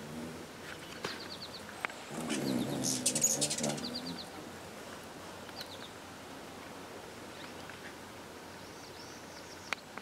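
Ruby-throated hummingbirds at a nectar feeder: short runs of quick, high chip notes come every second or two. About two seconds in, a louder whirring flurry of wings lasts for roughly two seconds.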